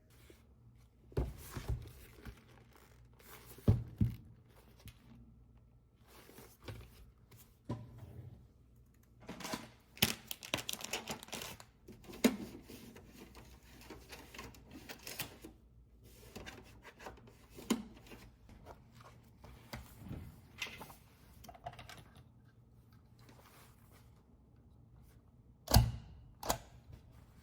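Scattered knocks, clicks and rustling as small objects are handled, with a rustling, tearing-like stretch about ten seconds in. Two sharp knocks near the end are the loudest sounds.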